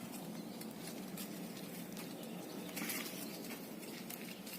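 Faint outdoor background with birds calling, scattered small clicks and a short rustle about three seconds in.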